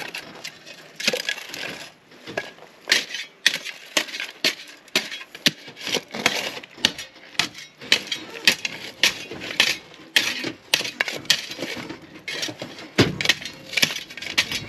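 Hand shovels digging into stony soil: an irregular run of scrapes and crunches as the blades strike and scrape over rock.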